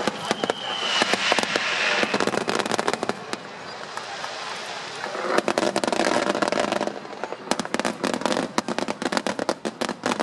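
Fireworks going off: a rapid run of sharp bangs and crackling pops from bursting shells. The noise thickens twice, about a second in and again around five seconds in.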